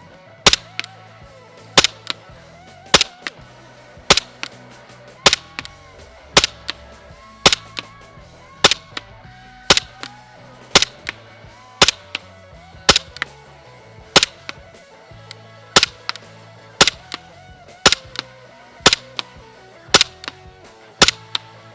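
Umarex Glock 17 Gen 4 gas-blowback airsoft pistol firing a steady string of single shots, about one a second, each a sharp crack of the shot and the slide cycling.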